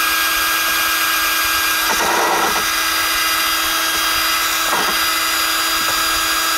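Power drill running at a steady speed, boring a guide hole straight through plywood, with a constant high whine.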